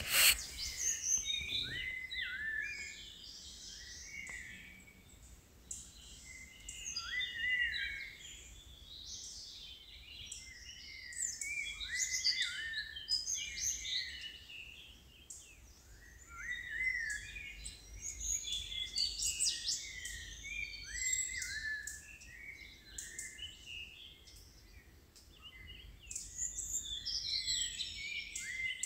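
Several birds calling at once: repeated short slurred whistles and higher chirps that come in clusters every few seconds, over a faint steady background noise.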